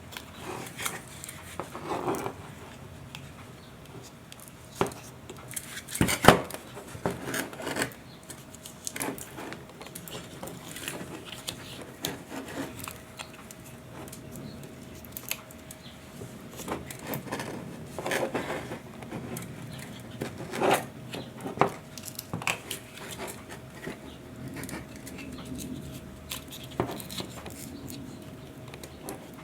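22-gauge wire being hand-wound into a coil around an Allen wrench core: irregular small clicks, taps and rubbing as the wire and core are handled, with a sharper knock about six seconds in.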